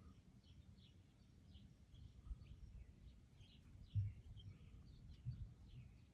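Faint birds chirping over a low rumble, with two soft low thumps about four and five seconds in.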